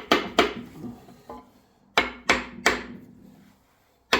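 Hammer blows driving a seized piston out of the cylinder of an Indenor XD3T 2.5-litre four-cylinder diesel block: two strikes near the start, three in quick succession about two seconds in and one more at the end, each with a short ring. The piston is stuck fast, held by water and corrosion in the cylinder.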